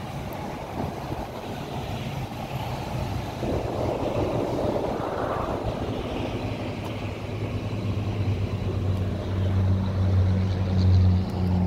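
An engine droning steadily at one pitch, growing louder over the second half, with a rushing noise swelling and fading about four to six seconds in.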